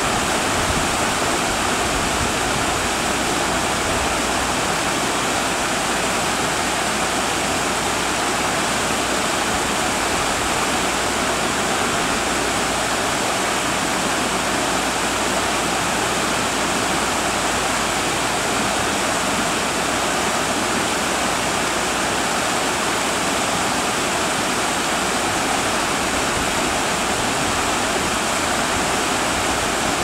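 Steady rush of a river flowing over rocks.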